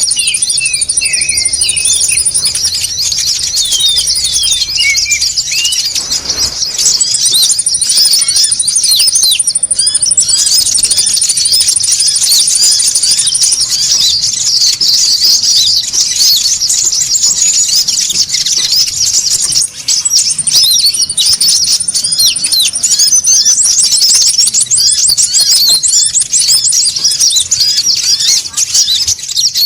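Many olive-backed sunbirds (kolibri ninja) calling at once: a dense, noisy chatter of short, high, sharp chirps, with a fast high trill that comes back every few seconds.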